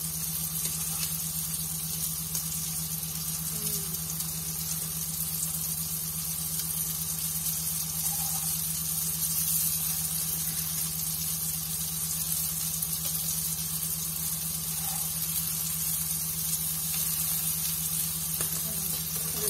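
Chicken shami kababs shallow-frying in a few tablespoons of hot oil in a nonstick frying pan: a steady sizzle.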